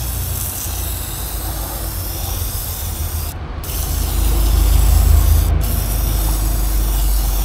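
Aerosol cleaner spraying onto engine parts in long hissing bursts, with two short breaks, about three and five and a half seconds in.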